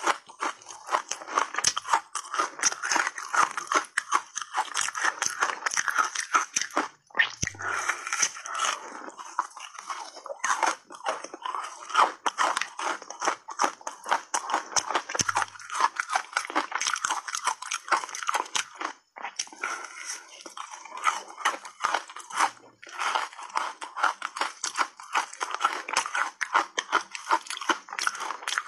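Close-miked crunching and chewing of reshaped ice coated in matcha powder: dense, rapid crackling bites, broken by two brief pauses.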